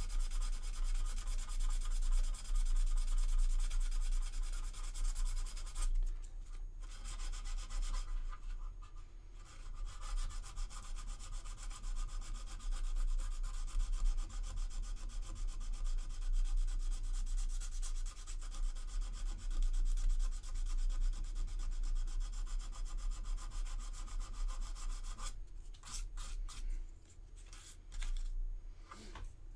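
Sandpaper rubbed by hand over a resin model kit part in quick back-and-forth strokes, smoothing a superglue-filled seam. The scratchy rubbing pauses briefly about six seconds in and again around eight to nine seconds, then stops and starts several times near the end.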